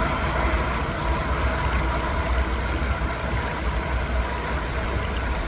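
Steady rush of river water flowing over rocks, with a low rumble underneath.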